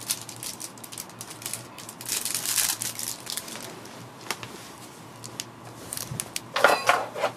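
Small plastic clicks and rustling of plastic packaging as keyboard keycaps are handled and fitted, with a longer crinkling rustle about two seconds in and a louder one near the end.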